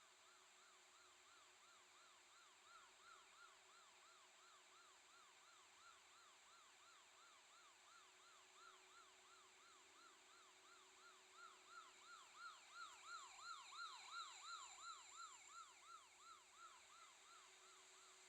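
Faint electronic siren in a fast yelp, its pitch rising and falling about three times a second without a break. It grows louder for a few seconds about two-thirds of the way through, then eases back.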